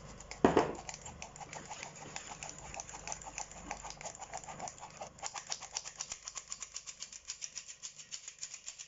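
Hand-operated stainless steel flour sifter being worked over a metal bowl, its mechanism clicking fast and evenly, about seven clicks a second, as flour is sifted through. A single loud knock comes about half a second in.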